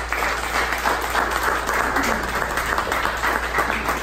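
Audience applauding: many hands clapping, steady and loud.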